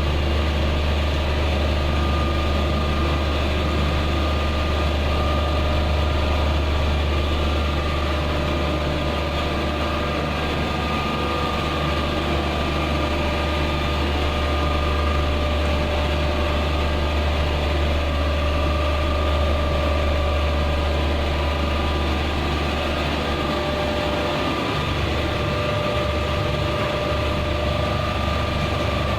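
Air conditioner outdoor unit running: a steady low electrical hum with a thin whine above it.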